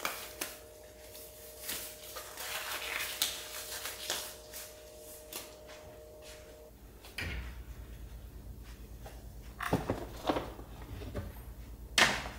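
Thin disposable gloves rustling and snapping as they are pulled onto the hands. Then a low steady hum, a few knocks, and a sharp clack near the end as something is taken out of a kitchen cupboard.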